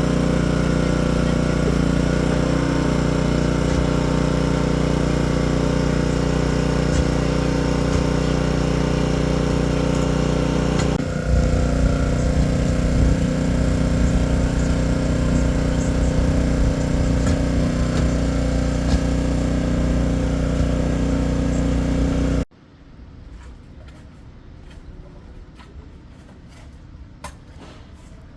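A combustion engine running steadily and loudly. Its sound shifts slightly about eleven seconds in, then cuts off abruptly about two-thirds of the way through, leaving much quieter background noise.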